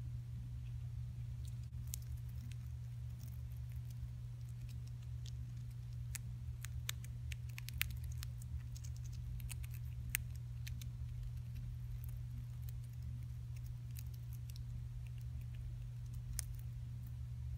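A dwarf hamster nibbling seeds and moving about in paper bedding: scattered small clicks and crackles, a few sharper ones near the middle, over a steady low hum.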